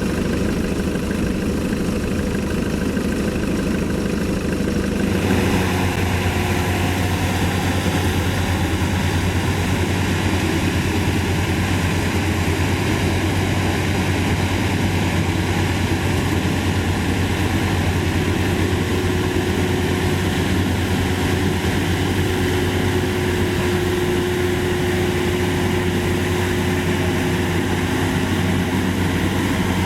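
Maxxi Bimo 102 rice combine harvester's engine running steadily. About five seconds in the sound steps up, becoming fuller and brighter, and then holds steady.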